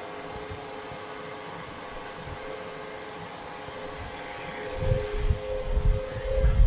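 KitchenAid Heavy Duty stand mixer running on slow speed, its motor humming steadily while the flat beater works chilled butter into the flour and icing sugar. Low, irregular thumps come in over the last two seconds.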